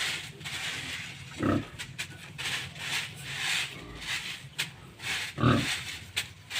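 Pigs grunting, with two louder low grunts about a second and a half in and near the end, over a steady run of short rasping noises about twice a second.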